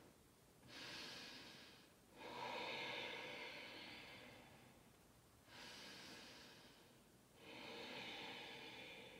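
A woman's faint, slow breathing: two deep breaths in and out while resting in a yoga child's pose.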